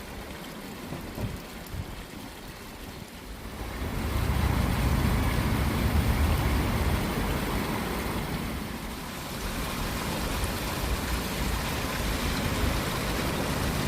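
Water rushing steadily in a stream or waterfall, growing louder about four seconds in.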